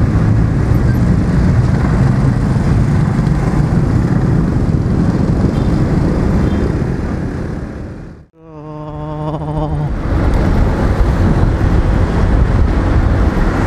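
Riding on a small Honda automatic scooter: steady wind and road noise over its single-cylinder engine running at speed, with traffic around. About eight seconds in, the sound drops out for an instant and comes back. A steady humming tone follows for about a second and a half.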